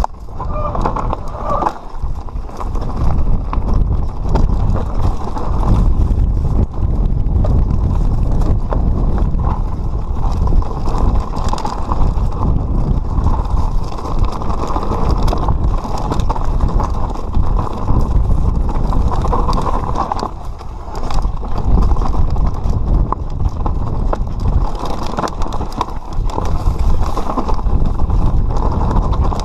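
Mountain bike descending a rocky trail: tyres rumbling and clattering over stones and the bike rattling, with wind buffeting the microphone. The noise eases briefly about two-thirds of the way through.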